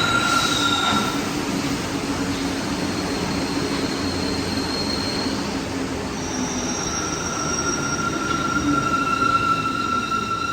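Rubber-tyred metro train running slowly on wet track, a steady rushing noise with high whining tones over it; a new set of higher whines comes in about six seconds in.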